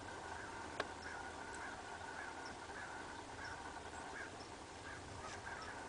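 Faint, steady outdoor background hiss with scattered short, high chirps and a single click about a second in.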